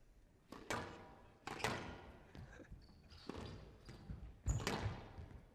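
Squash rally on a glass court: the ball cracks off rackets and walls in a series of sharp knocks about a second apart, the loudest near the end, with short high squeaks of court shoes on the floor.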